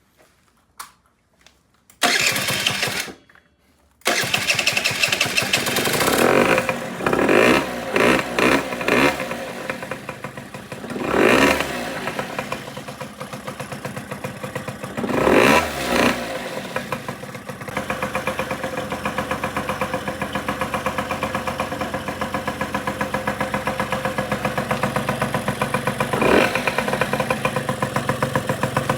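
Suzuki Street Magic 50's two-stroke single engine, run through a homemade silencer on the stock expansion chamber. It starts, the throttle is blipped several times in quick revs that rise and fall, and from about two-thirds of the way in it settles to a steady, pulsing idle.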